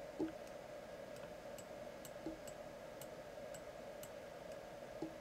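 Faint room tone: a steady hum with soft, regular ticking about twice a second, and three soft clicks, one near the start, one a little after two seconds in and one near the end.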